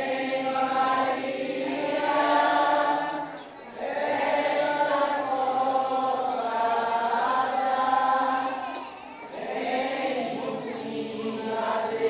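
A group of voices singing a hymn at Mass in long, held phrases, with a short break for breath about a third of the way in and another about three-quarters through.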